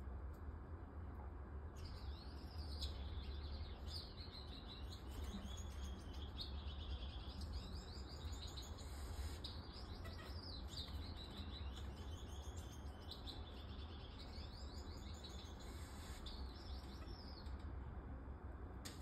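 Splendid parakeet (scarlet-chested parrot) twittering: quick runs of high chirps repeated every second or two, starting about two seconds in and stopping near the end, over a steady low hum.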